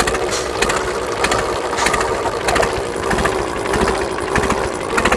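Yanmar 4CHS-T turbocharged four-cylinder marine diesel engine running at a steady speed, with short repeated knocks over its hum.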